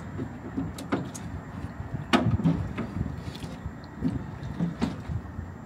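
Steady rushing of an outdoor propane seafood boiler's burner under a pot of boiling water, with a few sharp knocks, the loudest about two seconds in.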